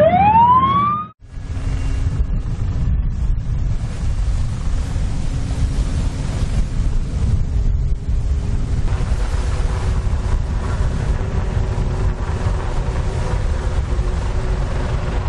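A single steeply rising tone that breaks off about a second in, followed by steady wind buffeting the microphone over a low rumble, as aboard a ship at sea.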